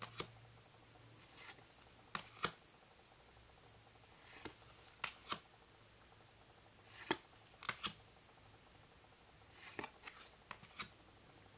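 Faint light clicks and slides of oracle cards as they are moved one at a time through a hand-held deck, a tick or a pair of ticks every second or two.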